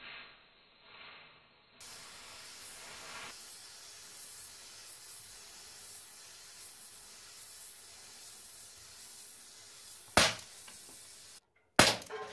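Umarex Beretta 84 FS CO2 air pistol fired at tin and aerosol-can targets: a faint steady hiss, then a sharp loud crack about ten seconds in and another near the end as a BB knocks the spray can over.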